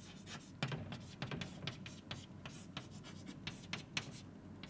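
Chalk writing on a blackboard: a faint, irregular run of short scratches and taps as a line of words is written.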